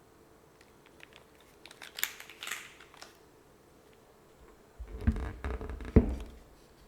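Mechanical keyboard typing on a gasket-mounted aluminium-plate board with case and plate foam, Gateron x SW Modern Gray linear switches and GMK Rudy keycaps. A few crisp keystrokes come about two seconds in. About five seconds in there is a quick run of deeper, louder strokes, the hardest near six seconds.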